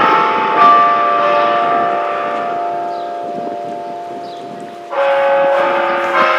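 Tower bells ringing: a fresh strike about half a second in and another near the end, the tones ringing on and slowly fading between the strikes.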